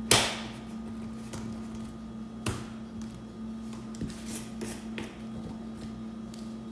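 Sharp clicks and taps of a metal teaspoon and plastic spice jar against a stainless steel mixing bowl while seasoning is spooned in: the loudest right at the start, another about two and a half seconds in, and lighter ticks after. A steady low hum runs underneath.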